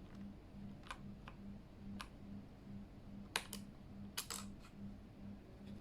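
Scattered hard plastic clicks and clacks of a Keychron K8 mechanical keyboard and its keycaps being handled, with a sharp pair about three and a half seconds in and a quick cluster just after four seconds. A faint low hum pulses about twice a second underneath.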